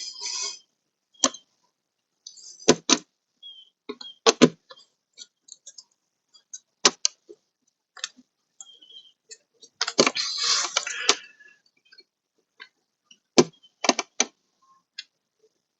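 Scattered sharp clicks and knocks of a screwdriver and screws being worked into a car door, with a longer scraping rustle about ten seconds in.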